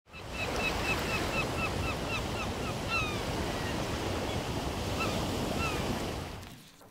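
Ocean surf washing steadily, with a bird giving a quick run of short falling cries, then a few more later. The sound fades out near the end.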